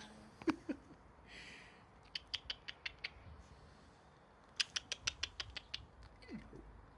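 Springerdoodle puppy's claws clicking on stone patio paving as it trots about, in two quick runs of light taps, each lasting about a second.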